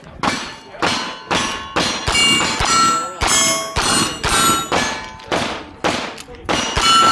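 A fast string of single-action revolver shots, about two a second, with steel targets ringing out in clear pings after hits.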